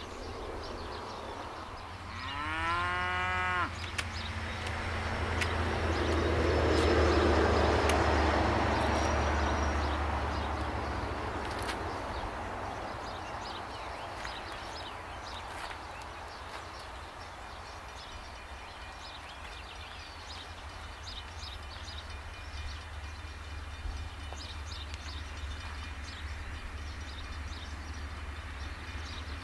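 A cow moos once, a rising call about two seconds in. Right after, a low rumbling rush of noise swells, peaks and fades away over several seconds; it is the loudest sound here.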